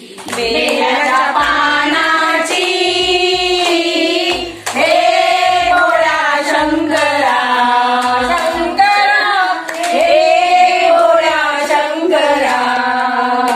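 A group of women singing a Hindu devotional bhajan together in long, drawn-out notes, clapping their hands to the beat.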